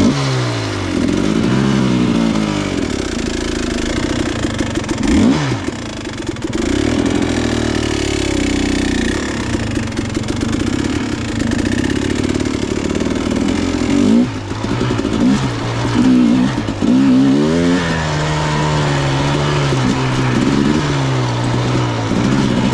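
Dirt bike engine revving up and down over and over, its pitch rising and falling with the throttle. In the last few seconds it holds a steadier note with smaller blips.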